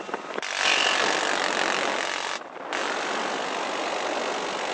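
Door-mounted machine gun on a UH-1Y Venom helicopter firing two long bursts, a dense rattling blast with a brief pause between them, over the helicopter's own noise.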